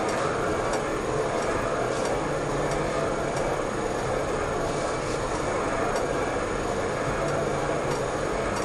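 Valve-seat cutting machine running steadily while a three-angle cutter cuts a valve seat in a Fiat 1200 cylinder head, with a faint steady tone and occasional light clicks.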